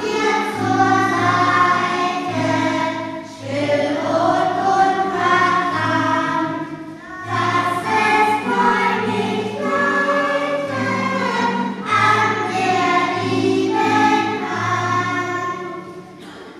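A group of children singing a song together in chorus, in phrases of a few seconds with short breaks between, over steady low sustained notes, the last phrase dying away near the end.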